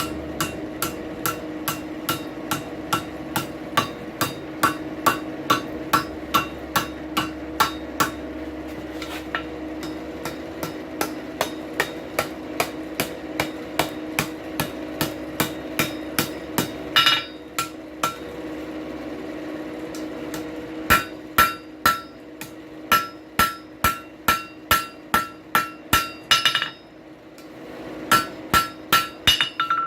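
Blacksmith's hammer striking hot steel on an anvil, about two ringing blows a second, as the reheated end of a drive hook is bent over. The blows stop for a few seconds about 17 s in, then come in two shorter runs, over a steady hum.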